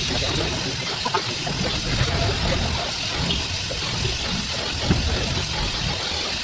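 Gas welding torch flame hissing steadily, with a low rumble beneath.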